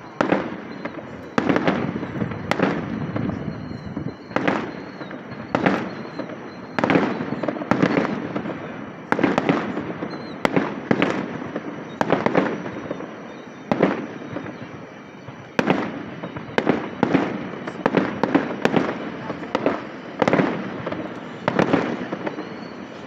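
Aerial fireworks shells bursting in quick succession, about one bang a second, each dying away in a short rumble.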